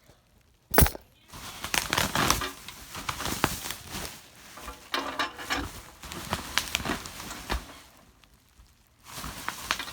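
Packaging rustling and crinkling in irregular bursts, with scattered clicks, as the ceiling fan motor is handled in its box. A single sharp knock comes about a second in.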